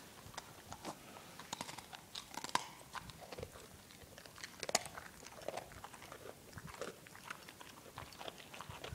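Boxer dog chewing a pretzel: irregular crisp crunches and bites, a few louder cracks among them.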